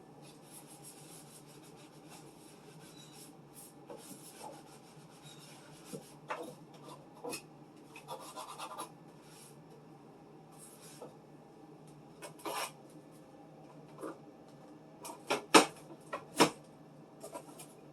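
Condiment bottles and jars being handled and set down: scattered knocks and taps with some rubbing and rustling, the two loudest knocks near the end.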